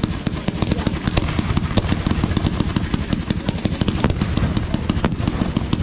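Fireworks display firing a dense barrage: a rapid, unbroken run of bangs and crackles, many reports a second, over a continuous low rumble.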